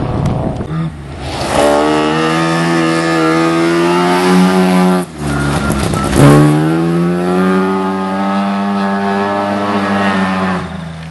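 Car engine under hard acceleration at high revs, with a brief dip about five seconds in as it changes gear, then pulling again. The revs fall away near the end.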